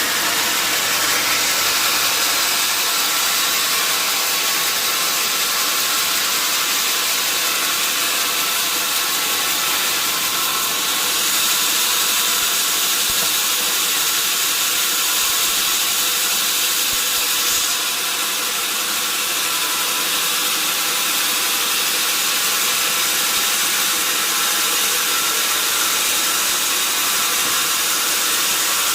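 A sawmill saw running steadily through mahogany, a loud, even hiss over a steady machine whine. The sound shifts slightly about eleven seconds in and again near eighteen seconds.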